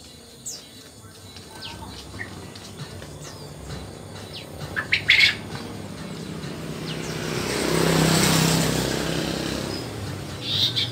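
Asian brown flycatcher calling with thin, high, falling chirps, a louder run of several notes about five seconds in and another near the end. Midway a motor vehicle passes, its sound swelling and then fading over about three seconds.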